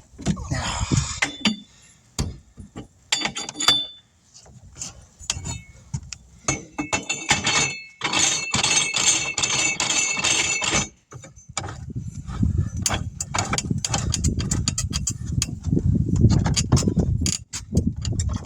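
Tire mounting on a tire changer: repeated metal clinks and clanks of tools against the steel rim and machine, a squealing stretch in the middle, then a low rumble with rapid clicking through the second half.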